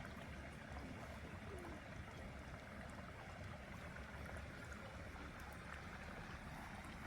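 Small creek flowing: a steady, faint rush of running water.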